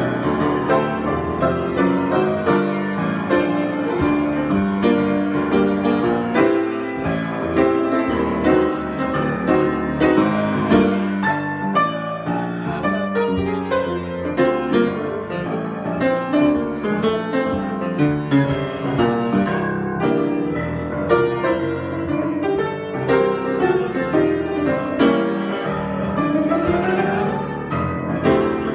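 Solo piano improvisation: a steady stream of notes and chords, with a quick upward run near the end.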